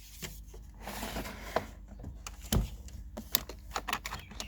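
Clicks, knocks and scraping of small parts of a heat lamp unit being handled and fitted together by hand during reassembly, with a scraping rustle about a second in and a single louder knock a little past halfway.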